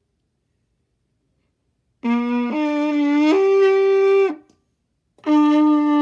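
Trumpet playing three held notes stepping upward, then after a short pause starting another long note near the end.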